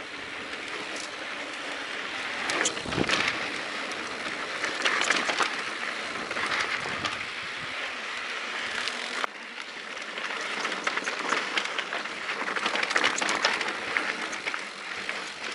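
Mountain bike rolling downhill on a dry, rocky dirt trail: a steady crunch and hiss of tyres on dirt and gravel, with frequent small clicks and rattles from stones and the bike going over rough ground.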